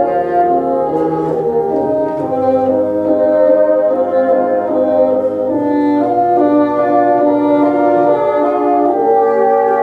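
Bassoon ensemble playing together, several bassoons holding notes in harmony, with the chords changing about once a second.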